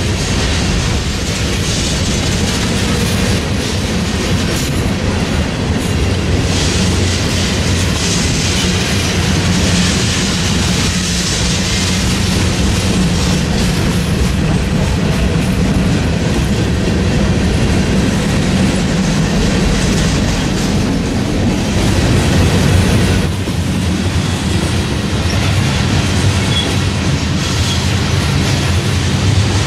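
Freight train of tank cars and covered hoppers rolling past close by: a loud, steady noise of steel wheels on rail, with a brief change about 23 seconds in.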